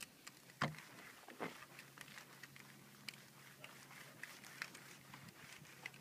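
Faint wet rubbing and scattered light clicks as a soapy medium-grade clay towel is wiped over a car's painted panel, with two louder knocks about half a second and a second and a half in. A faint low hum runs under it from about a second and a half to five seconds.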